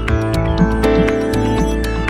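Background music with sustained chords, a deep bass and a steady ticking beat.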